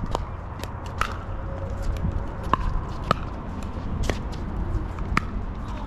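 Pickleball rally: paddles hitting the hard plastic ball back and forth, about six sharp pocks, roughly one a second, over a low rumble.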